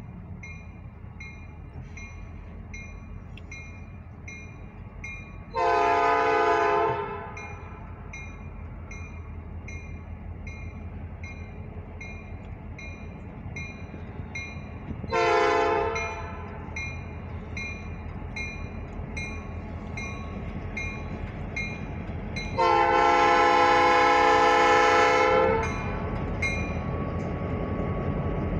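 Crossing bell dinging about twice a second while a Norfolk Southern EMD GP38 diesel locomotive sounds its horn for the crossing: a blast of about a second and a half, a short one, then a long one of about three seconds. A low diesel rumble grows louder near the end as the train draws near.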